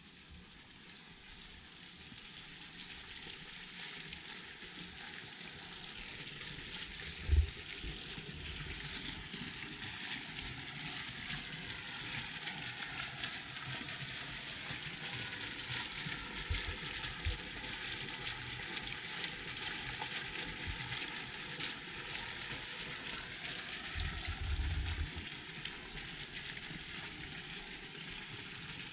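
Small fountain jet splashing into a stone basin of water: a steady hiss of falling water that grows louder over the first several seconds and then holds. A single sharp thump about seven seconds in, and a few low thumps later.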